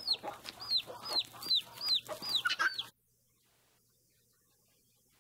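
Farmyard chickens: a high, falling call repeated about twice a second, with clucking beneath it. It cuts off suddenly about three seconds in, leaving near silence.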